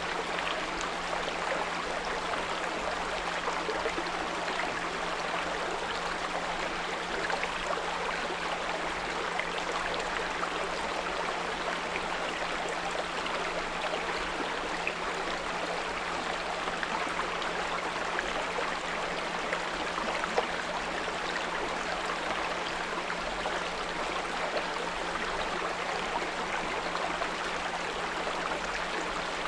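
A small brook flowing steadily, with a constant low 174 Hz pure tone underneath it.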